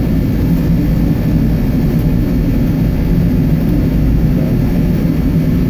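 Steady low mechanical drone of running industrial equipment, loud and unchanging.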